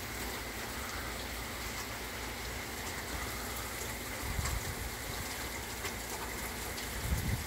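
Steady rain falling on a lawn and a wet paved street, an even hiss, with a couple of brief low rumbles on the microphone about halfway through and near the end.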